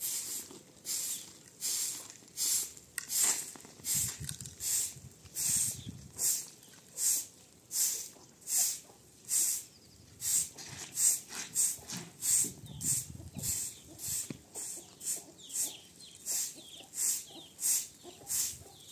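Rhythmic scraping or brushing strokes, about three every two seconds, steady and even.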